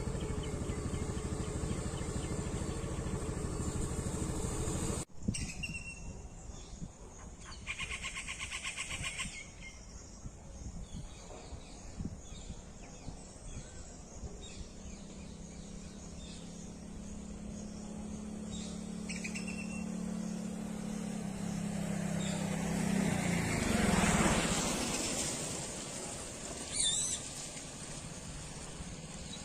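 Outdoor traffic and bird sounds. A steady engine hum breaks off abruptly about five seconds in. Short bird chirps follow, then a vehicle's engine that grows louder, passes close about two-thirds of the way through, and fades.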